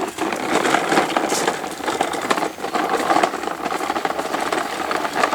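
Crackling and rustling of dry leaves and twigs: many small snaps and crunches.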